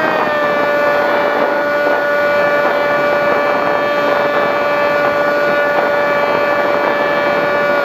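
The Skywalker FPV plane's 910kv brushless electric motor and propeller running steadily in flight, heard from on board as a steady whine over rushing air. The pitch dips slightly right at the start and then holds.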